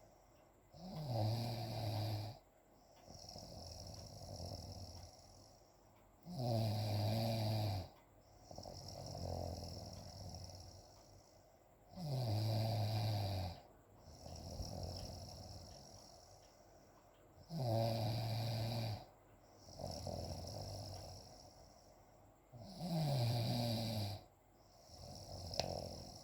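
A person snoring in steady, regular cycles, five times, about every five and a half seconds: a loud pitched snore on each breath in, dropping in pitch as it starts, followed by a softer breath out.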